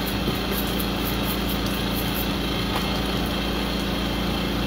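Portable generator engine running steadily with a constant low hum.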